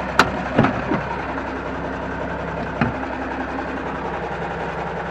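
John Deere 4630's six-cylinder diesel idling steadily in park, heard from inside the cab, with a few sharp clicks near the start and another about three seconds in.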